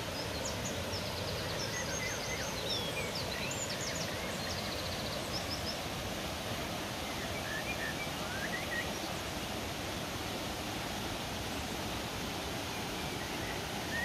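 Creek water rushing steadily over rocks, with small birds chirping over it, including a quick trill a few seconds in and more chirps around eight seconds in.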